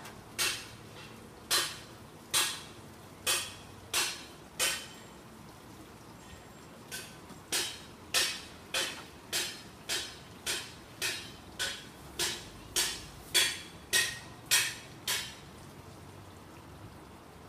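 A series of sharp clinks, each with a short ring. There are about six, one every second or so, then after a pause of about two seconds some fifteen more, coming a little faster.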